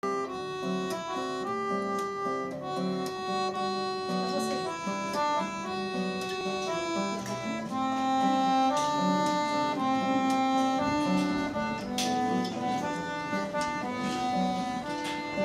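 An accordion and an acoustic guitar playing a tune together: held accordion notes changing pitch over short, regular guitar strokes.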